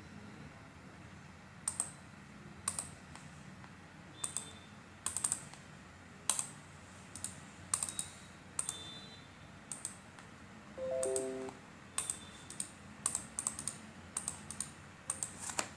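A series of about twenty sharp, irregularly spaced clicks, with a short falling chime of a few notes about eleven seconds in.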